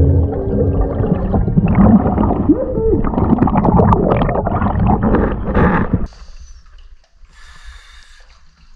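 Underwater bubbling and gurgling of scuba divers' exhaled air, loud and dense, heard through a submerged camera. It cuts off suddenly about six seconds in as the camera breaks the surface, leaving only faint, sparse water sounds.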